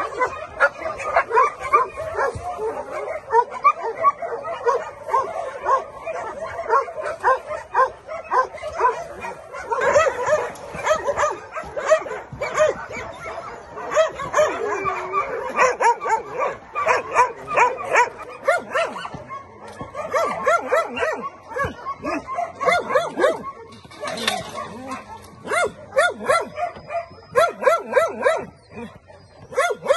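Several dogs barking and yapping in a continuous stream of short, overlapping calls.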